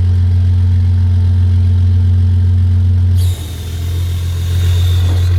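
Diesel truck engine idling steadily with its PTO-driven air compressor engaged. About three seconds in, a loud hiss of escaping compressed air with a high whistle starts and runs on, while the engine note changes and briefly dips.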